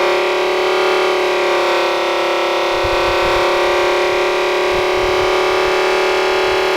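Reworked electric air raid siren running at full speed, holding a steady, harsh chord of several tones. The unevenly spaced stator ports give it a granulator-like rasp. Low rumbles come in about three and five seconds in.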